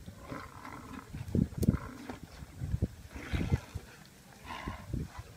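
A pack of African wild dogs tearing at a live antelope: irregular scuffling thumps with short, high animal calls and cries in between.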